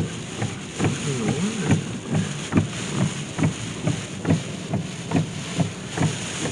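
Car windshield wipers on full speed, thumping in a steady rhythm of about two beats a second, over the hiss of heavy rain and wind on the car.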